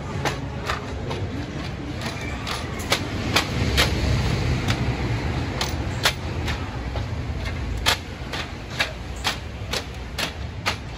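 Footsteps on a concrete walkway, sharp taps about twice a second, over a steady low rumble that swells from about three seconds in and eases off again near six seconds.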